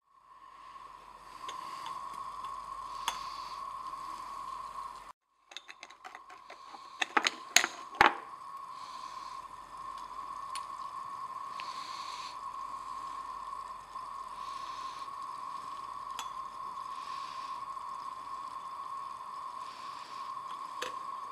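Sharp clinks of metal tongs against a glass watch glass and beaker rim, a quick cluster of them about seven to eight seconds in, the loudest two half a second apart. Under them runs a steady high whine with a faint hiss.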